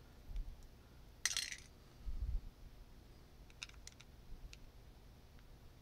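Faint metal-on-metal scraping and light clicks of a thin pocket screwdriver working a tiny screw in a Microsoft Band 2's metal frame: a short scratchy scrape a little over a second in, a few quick clicks later, and a couple of soft handling bumps.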